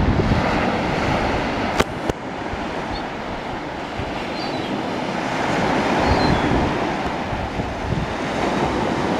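Small sea waves breaking and washing up a sandy beach, with wind buffeting the microphone in low rumbling gusts.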